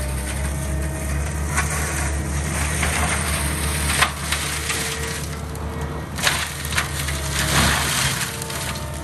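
Gyrotrac 500HF forestry mulcher head on a Cat compact track loader grinding through brush and small wood over the loader's steady engine drone. Wood cracks and splinters repeatedly, with the sharpest crack about four seconds in and a run of grinding bursts after it.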